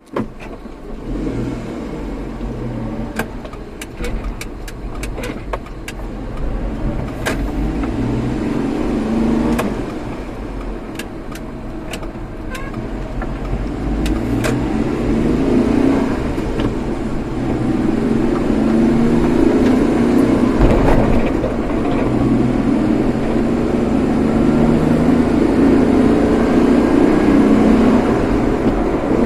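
Car being driven, with a steady road rumble and an engine note that rises and falls with speed. Scattered sharp clicks come in the first dozen seconds.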